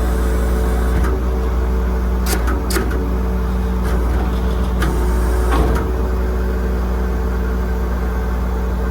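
The truck's 5.9 Cummins diesel engine running steadily, a constant low hum. A few short clicks sound over it partway through.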